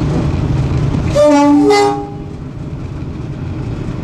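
Class 52 'Western' diesel-hydraulic locomotive's two-tone horn sounding one short blast of two notes, heard from inside the cab, about a second in, over the steady drone of the running locomotive. The locomotive's drone is a little quieter after the horn.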